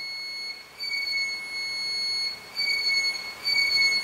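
Ghost-hunting pod, a proximity and electromagnetic-field alarm, sounding a high-pitched electronic tone in several stretches of about a second each with short breaks between. It is the alarm that goes off when something disturbs the field around its antenna, which the investigators take for a spirit manifesting.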